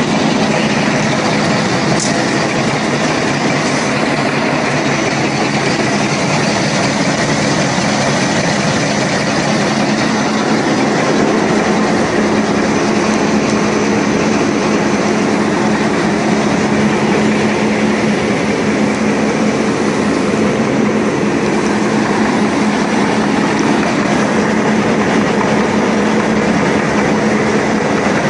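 Automatic wet-wipe folding and packing machine running steadily: a loud, continuous mechanical din of belts, rollers and motors over a constant low hum.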